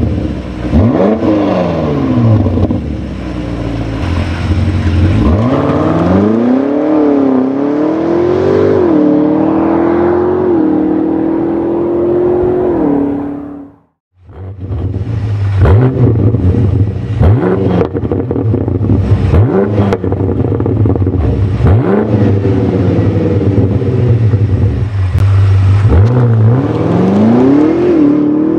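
BMW M5 Competition's twin-turbo V8 through an AC Schnitzer exhaust. In comfort mode it is blipped a few times, then pulls away with rising revs and quick upshifts. After a short break, in sport mode, it is blipped repeatedly with sharp crackles between the revs, then accelerates away again near the end.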